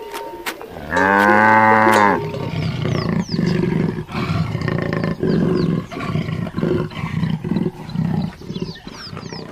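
A cow moos once, about a second in. Then a lion gives a long series of short, evenly spaced grunting calls, about two a second, with faint high chirps behind.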